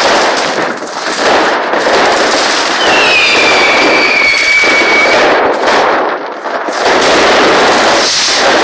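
Loud fireworks and firecrackers going off in a dense, continuous barrage of bangs and crackling. About three seconds in, a whistling firework gives a shrill tone that drops slightly and then holds for about two seconds.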